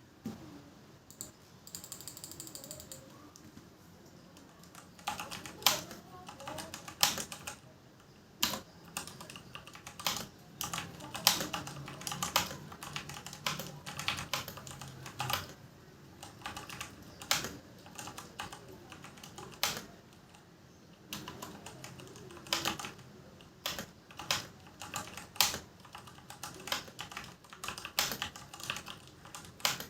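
Typing on a Digital Alliance Meca 6 Plus mechanical keyboard with Outemu brown switches: a continuous, irregular run of keystroke clicks with scattered louder strikes, lighter for the first few seconds.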